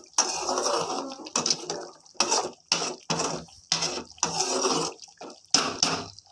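A metal ladle scooping and pouring thin sambar in a large metal pan, in a string of short splashes and scrapes against the pan about every half second.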